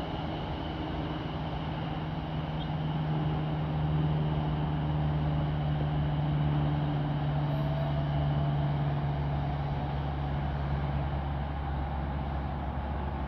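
A steady low mechanical drone with a constant hum, over a general rumble, rising a little about four seconds in.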